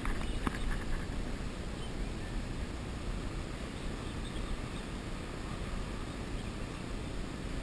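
Wind buffeting the microphone outdoors: a steady low noise, with a couple of faint clicks shortly after the start.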